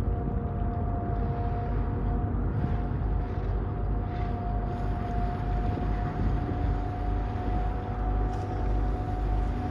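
Ferry's engines running steadily, heard on board: a deep rumble with a steady whining tone over it.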